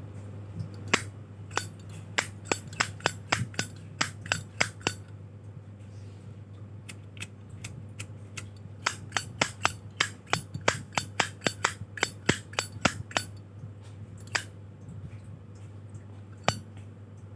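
Zippo lighter lid being flipped open and snapped shut again and again, giving sharp metallic clicks in quick uneven runs with pauses between them, over a steady low hum. The lighter is a silver-plated FIFA World Cup 2006 Zippo with a thick raised emblem covering the lid, which typically changes the lid's sound little.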